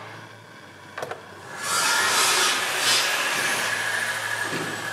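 A click about a second in, then a handheld gas blowtorch flame hissing loudly and steadily while copper pipe is soldered.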